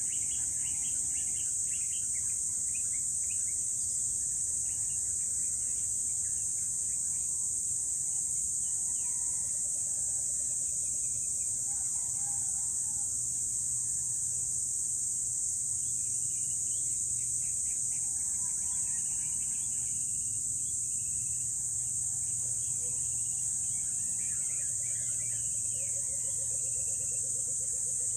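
Steady, high-pitched insect chorus that runs unbroken, with scattered bird chirps over it. A faint low hum lies beneath, and a rapid pulsed call comes near the end.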